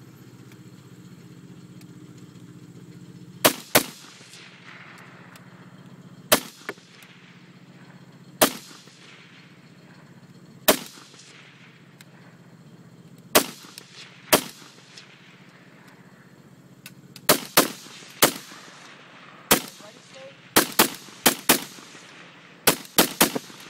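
Rock River Arms AR-15 rifle fired semi-automatically: a string of about twenty single shots, each cracking and trailing off in an echo. The shots come a second or more apart at first, then quicken to several in quick succession near the end.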